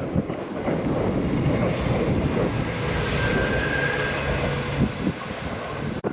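Shizuoka Railway 1000 series electric train passing close by, its wheels rumbling on the rails over a steady low hum, with a thin high wheel squeal around the middle of the pass.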